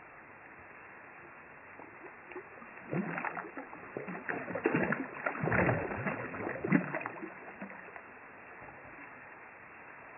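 A hooked fish thrashing and splashing at the water's surface in a run of irregular splashes lasting about four seconds, loudest near the middle, then dying away.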